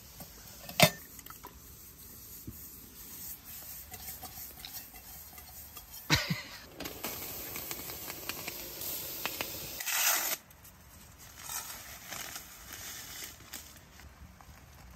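Camp-cooking sounds: a sharp knock about a second in, then water bubbling in a small metal kettle at the boil on a stove top, and hot water being poured onto dry oats.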